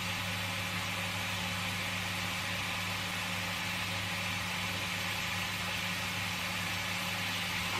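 Flank steak sizzling in a hot grill pan, a steady even hiss, over a constant low hum.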